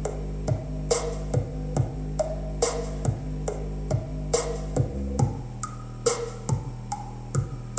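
Electronic music played through a DIY toolbox Bluetooth speaker with a PVC-pipe bass port, driven by a small 15-watt-per-channel amplifier with no bass boost. A deep sustained bass line runs under a steady drum-machine beat of a little over two hits a second, and the bass note shifts about five seconds in.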